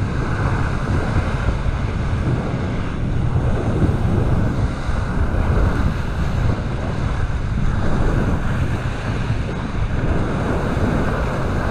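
Steady wind rumble on the microphone over the rush of sea water past a moving boat.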